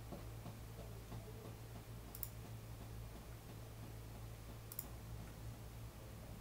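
Two computer mouse clicks about two and a half seconds apart, each a quick double tick, over a low steady electrical hum.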